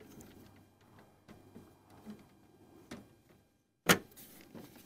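Handling noise of a plastic flip-lid tote and a Starlink dish: scattered light clicks and knocks as the lid is closed and the dish is set flat on top, with one sharp, much louder knock about four seconds in.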